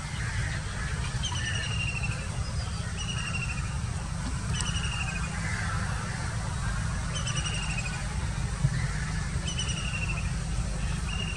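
A bird calls repeatedly, a short falling chirpy note every second or two, over a steady low rumble. One sharp click comes near the end.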